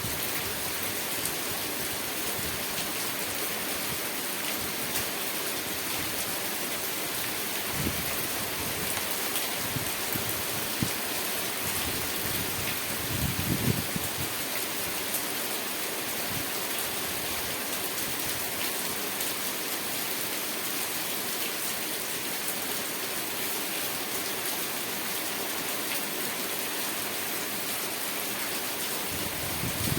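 Steady rain falling, an even hiss throughout, with a few brief low thuds, the loudest about halfway through.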